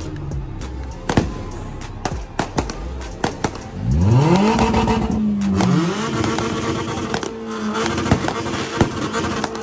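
Fireworks bang and crackle. About four seconds in, a car engine revs up sharply, drops, then is held at high revs.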